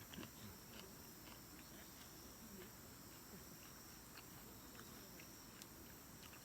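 Faint, steady chorus of night insects such as crickets, high-pitched and unbroken, with scattered faint clicks.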